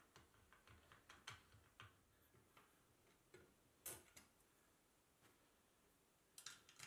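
Near silence broken by a few faint clicks of a small hex key working the machine screws that fix the steel leg bracket of the desk frame to the desk top; the sharpest click comes about four seconds in, with a few more close together near the end.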